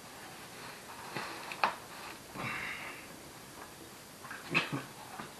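Plastic stroller parts clicking and knocking as they are handled and pushed together, with a short rasp about halfway through.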